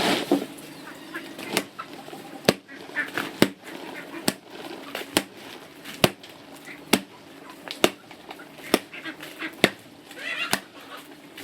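Steady chopping, one sharp blow a little more often than once a second, evenly spaced. Farm fowl honk briefly at the start and again near the end.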